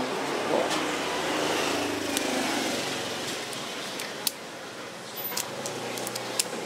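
A passing road vehicle's rushing noise swells and fades over the first three seconds or so. Then come several small sharp clicks of a metal quarter-inch jack plug and a plastic jack socket being handled.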